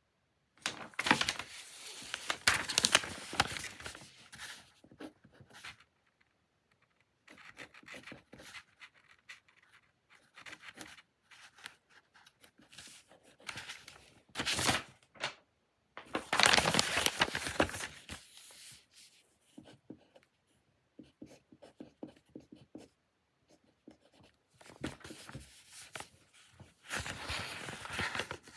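Close-up desk work sounds: paper and stationery being handled, with scratching, rustling and small clicks. They come in several bursts with quiet pauses between.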